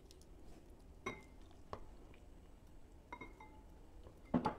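Metal spoon clinking against a glass bowl while stirring fish bait wetted with hot water: a few separate light clinks, one ringing briefly about three seconds in.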